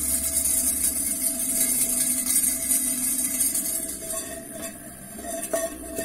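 Homemade snake and mole repeller running: a small 5 V vibration motor buzzing inside a hanging metal coffee tin, rattling the tin and an extra strip of sheet metal added to make it knock louder. A steady rattle with a faint hum, dipping briefly about five seconds in.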